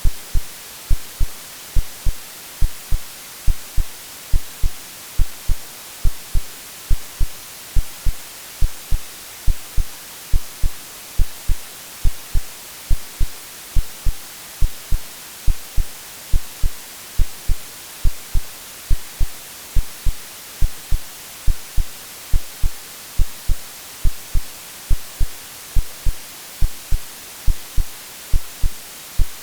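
Synthetic heartbeat over a steady white-noise hiss. Each beat is a pair of low thumps (lub-dub), repeating at an even pace, like the womb sound played to soothe a baby to sleep.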